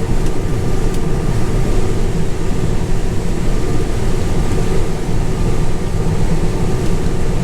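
Combine harvester running steadily at work in a soybean field, a continuous low machine rumble with a steady hum.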